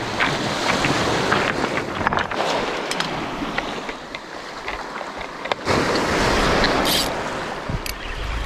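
Sea waves surging and washing over shore rocks, in two swells, the second rising sharply a little past halfway. A few light clicks sound over the top.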